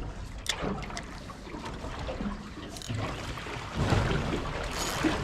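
Water sloshing and lapping around a small boat's hull, with a few short knocks, louder near the end.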